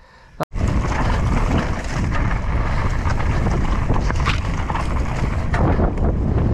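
Wind buffeting the microphone of a mountain biker's camera while riding a trail, starting abruptly about half a second in, with a few knocks from the bike over rough ground.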